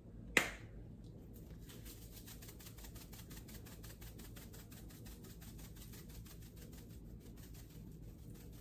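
Black-pepper grinder being twisted by hand: one sharp click about half a second in, then a long, rapid run of faint, evenly spaced grinding clicks as the pepper is cracked.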